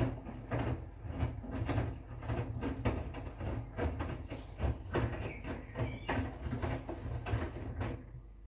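Front-loading washing machine tumbling a wet load of towels and bedding, water sloshing and splashing against the door glass in irregular surges over a steady low motor hum.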